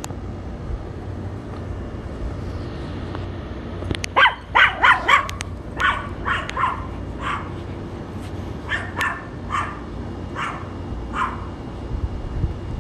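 Small dog barking: about a dozen short, high yapping barks. They start about four seconds in, come in a quick run at first, then grow more spaced out.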